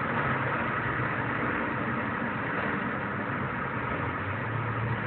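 Inside the cabin of a turbocharged Peugeot 106 GTI at high motorway speed: engine drone under heavy wind and road noise, steady and easing slightly in loudness.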